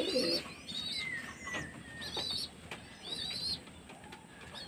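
Domestic pigeon giving a brief low coo at the start, while a small bird's short, high, wavering chirps repeat about once a second, with one falling whistle early on.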